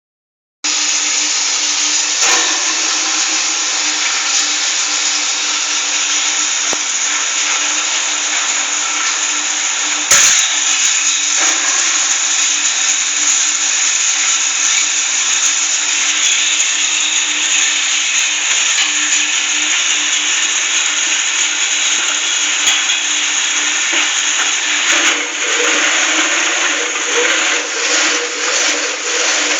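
Oil palm empty fruit bunch shredder running: a steady, loud motor-driven whirr with a constant low hum. There is one sharp knock about ten seconds in, and irregular rattling knocks over the last few seconds.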